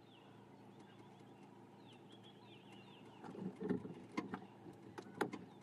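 Safari vehicle's engine idling with a faint steady hum. Faint high chirps come about two seconds in, and a few soft low sounds and sharp clicks follow in the second half.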